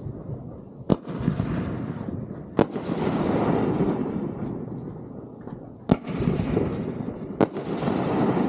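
Fireworks going off: four sharp bangs spread over the stretch, each followed by a long rolling rumble that fades away.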